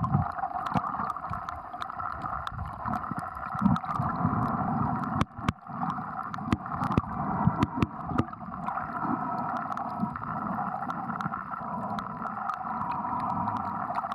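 Water sloshing and gurgling close to the microphone, with a steady whooshing background and many scattered sharp clicks.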